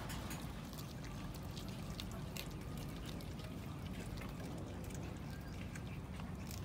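Cats chewing raw fish, with wet, irregular chewing and small clicks over a steady background hiss.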